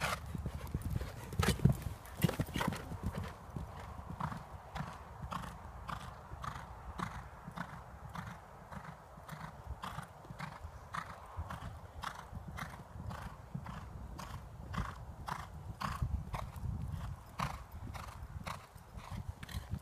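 Hoofbeats of a grey horse cantering on a sand arena surface, a steady run of regular strikes, with a couple of louder thumps about two seconds in.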